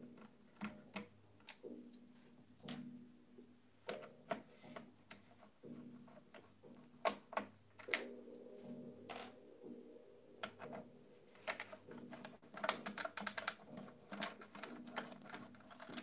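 Irregular light clicks and ticks of a hand screwdriver working out the screws of the stock AM4 CPU socket mount on a motherboard, with small taps of metal and plastic as the screws come loose. The clicks come in clusters, thickest about seven seconds in and again toward the end.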